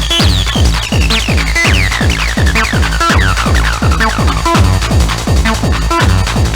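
Techno/trance dance music from a DJ set: a fast, steady four-on-the-floor kick drum, about two beats a second, under a repeated falling synth line.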